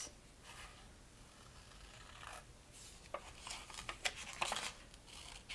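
Scissors snipping through a sheet of colored paper in a series of short, faint cuts, coming more often from about two seconds in.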